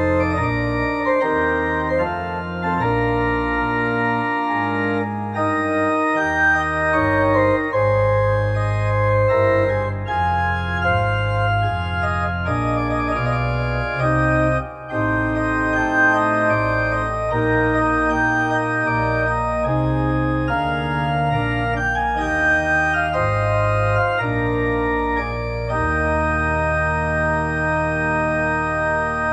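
Pipe organ playing slow, sustained chords over deep pedal bass notes.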